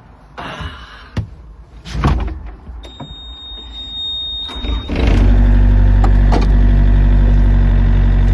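A few clicks and a thump, a steady high beep for about two seconds, then the Yanmar excavator's diesel engine starts about five seconds in and settles into a steady idle.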